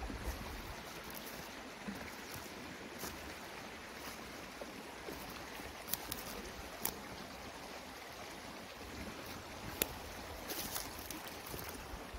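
Steady rush of a stream's running water, with a few scattered crunches of footsteps on dry grass and gravel.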